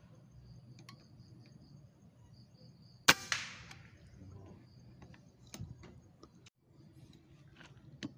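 A single air rifle shot: one sharp crack about three seconds in with a short ringing tail, followed by a few smaller clicks. Insects trill faintly and steadily before the shot.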